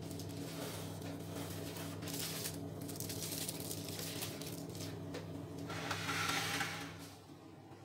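A foil-wrapped metal cake tin being handled and set down into a baking tray of just-boiled water, with a brief rustle and scrape about six seconds in. A steady low hum runs underneath and stops near the end.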